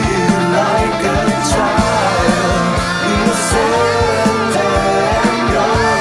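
Progressive metal band playing: steady kick-drum beats with cymbal crashes twice, over electric guitars, and a lead line that bends and wavers in pitch.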